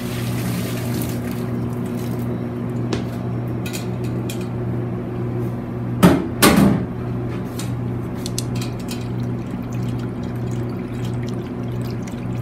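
Kitchen water and metalware: a short rush of running water at the start, then a loud clank with splashing about six seconds in, and light clinks and trickles of water as cooked glass noodles are rinsed in a wire strainer sitting in a stainless steel bowl of water. A steady electrical hum from kitchen equipment runs underneath.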